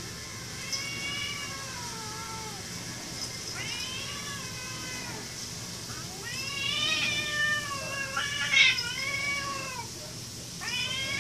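A house cat yowling in long, drawn-out calls: three of them, the longest about three and a half seconds and the loudest, with a fourth starting near the end. It is a warning yowl at a black Halloween cat decoration that it takes for a real rival cat.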